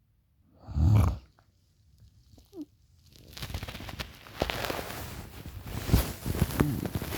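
A single loud, short snore about a second in. From about three seconds on it is followed by a run of rustling, clicking and crackling noises.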